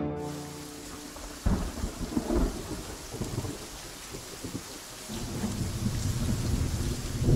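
Steady rain with rolling thunder: one rumble breaks in suddenly about a second and a half in and dies away, and another builds from about five seconds in.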